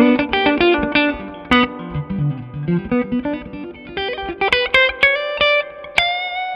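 PRS Silver Sky electric guitar played through a SineWave Sterling Custom Signature amplifier: a quick single-note lead line of picked notes that dips into low notes in the middle, climbs back up, and settles on a longer held note near the end.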